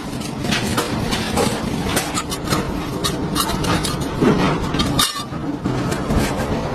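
Repeated light metallic clinks and knocks, irregular and several a second, over a steady low mechanical hum.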